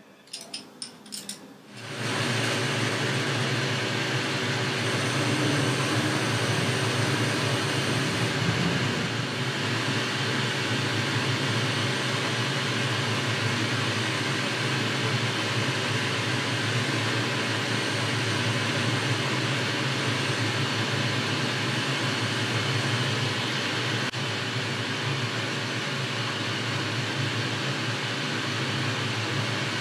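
Boxford metalworking lathe running steadily with an even machine hum, after a few light clicks and a start about two seconds in. It is taking a shallow taper cut on a thin pin with a carbide-insert tool, the compound slide set over about 3 degrees.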